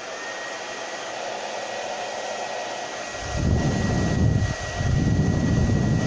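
Irresistible Me Onyx Professional infrared hair dryer running just after being switched on: a steady rush of air with a thin, high steady whine. A heavy low rumble joins about three seconds in.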